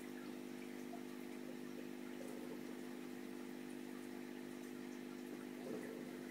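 Steady low hum of an aquarium pump with a faint water trickle, with a brief louder moment near the end.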